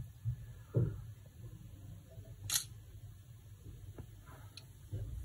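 Smartphone camera shutter sound from a OnePlus 8T's speaker as a photo is taken: a single sharp click about two and a half seconds in. Faint taps from handling the phone come before and after it.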